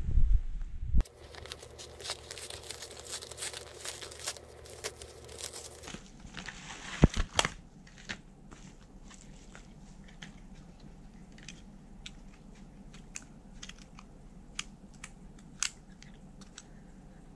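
Paper mailer envelope being crinkled and torn open: low handling thumps, then dense crackling and tearing for about five seconds. After that, one sharp knock about seven seconds in and scattered light clicks and taps as small packaged items are handled.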